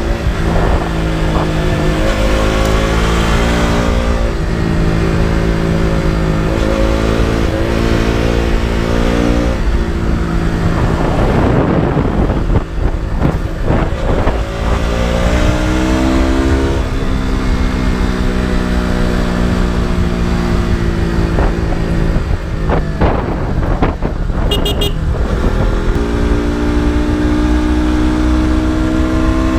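KTM RC 200's single-cylinder four-stroke engine and exhaust pulling hard on a ride, its pitch climbing under throttle and dropping back at each gear change several times over, with wind rush during a stretch off the throttle about halfway through.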